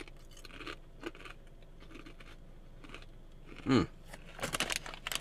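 Quiet chewing of a barbecue corn chip with light crunches, then crinkling of the chip bag near the end as a hand goes in for another. A short, loud low sound falling in pitch comes a little before the crinkling.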